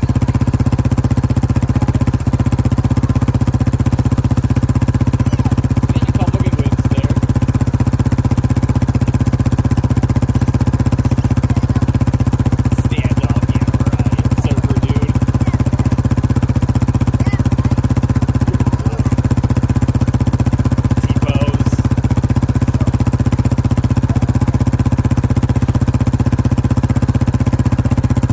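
Engine of the vehicle towing the sled idling steadily, a constant even hum.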